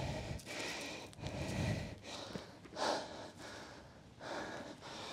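Person breathing heavily, catching their breath after intense pad work: about four deep breaths, each roughly a second and a half apart.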